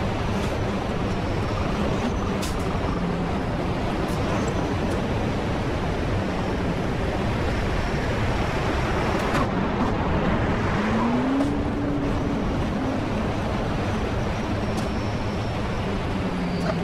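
Semi-truck diesel engine running steadily amid road and traffic noise. Its pitch climbs briefly about eleven seconds in, then holds.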